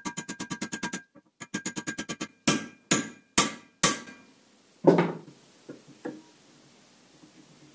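Hammer striking a steel drift to drive a bushing into a snowmobile suspension arm, with ringing metal-on-metal impacts. Two fast runs of light taps come first, then about five heavier single blows, and two faint knocks around six seconds in.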